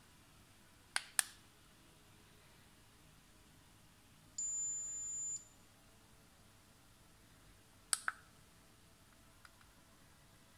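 Geratherm NonContact infrared thermometer being operated: its plastic button clicks twice about a second in, then the thermometer gives one steady, high-pitched beep lasting about a second, the signal that a reading is done. Two more button clicks come near the end.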